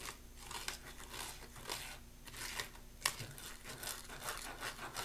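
Small plastic spoon stirring and scraping in a small plastic tray, mixing DIY candy powder and water into a foam: quiet, irregular scratchy strokes, a few a second.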